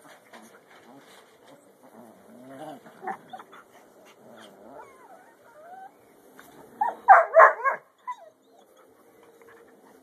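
Dogs at play: faint whines and small vocal sounds, then about seven seconds in a short burst of loud, rapid barks.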